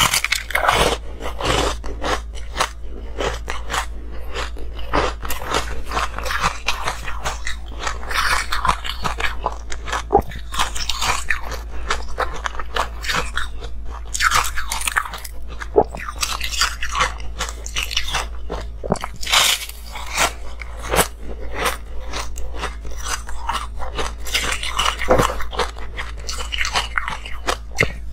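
Ice being bitten and chewed up close to a clip-on microphone: a dense, irregular run of crunches and crackles as the frozen slab breaks between the teeth, over a steady low hum.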